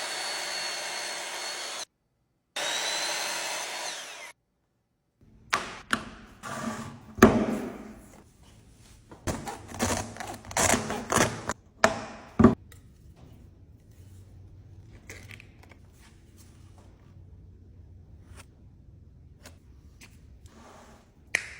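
A power tool runs in two short spells with a steady whine, stopping briefly in between. Then comes a run of sharp knocks, clatters and thuds, and near the end only scattered light taps.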